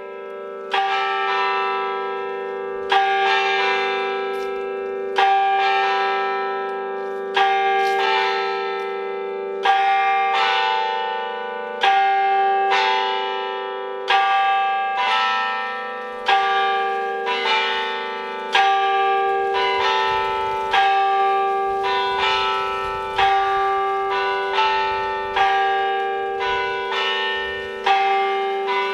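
Church bells ringing a peal, struck at an even pace, each stroke ringing on into the next over a steady hum.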